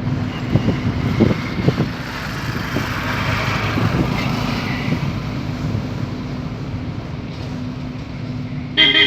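Modified Ford Ikon's loud aftermarket exhaust running, with several sharp pops in the first two seconds and a short, loud burst near the end.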